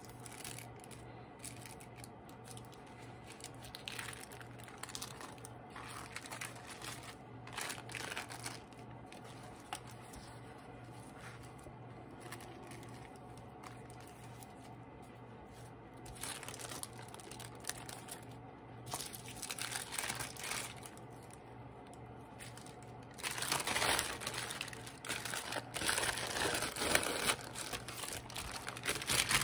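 Thin glue-damp tissue paper being handled and peeled back, rustling and crinkling in short bursts that grow denser and louder near the end as the sheet is lifted.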